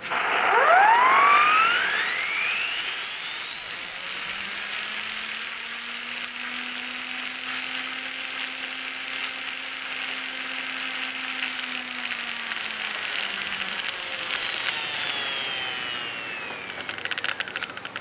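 Elmer Verburg #12 model steam turbine running on live steam. Steam hisses in and the turbine's whine rises quickly to a high pitch over a couple of seconds, holds steady, then falls away and fades as the steam is shut off, with rapid ticking near the end.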